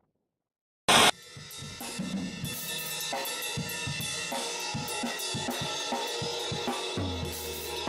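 Background rock music with a full drum kit, cymbals and hi-hat. It starts about a second in, after a moment of silence, with a loud crash.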